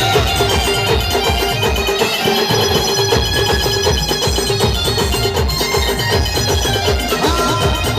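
Adivasi band playing a Timli dance tune: a quick, steady drum beat under a held melody line.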